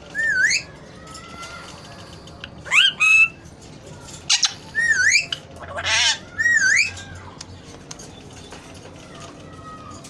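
Alexandrine parakeets giving a series of loud calls, about seven in the first seven seconds, several dipping and then rising sharply in pitch; after that they fall quiet.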